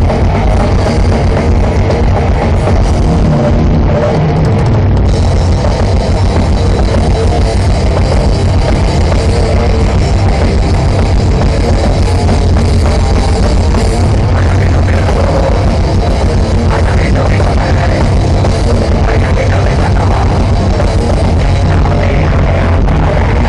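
Grindcore band playing live through a large outdoor PA, heard from within the crowd: loud, dense guitars and drums without a break.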